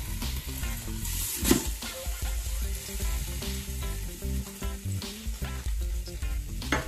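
Hot fat and chicken juices sizzling in the Ninja Foodi's cooking pot as the half-roasted chicken is flipped and set back in breast down, with a sharp knock about a second and a half in. Background music plays underneath.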